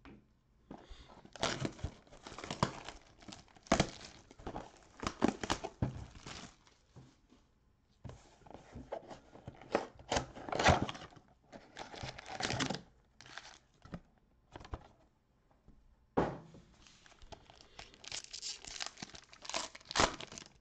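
Plastic shrink wrap crinkling and tearing as it is stripped off a cardboard trading-card box and the box is opened, in irregular bursts with sharp snaps and short pauses. Near the end a foil card pack crinkles as it is handled.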